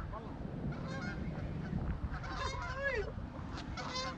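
Geese honking: several short calls that rise and fall in pitch, the strongest around two and a half to three seconds in.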